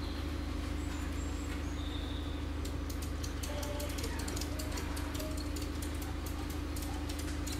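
A vehicle engine idling with a steady low drone. A rapid run of faint clicks or ticks starts about three seconds in.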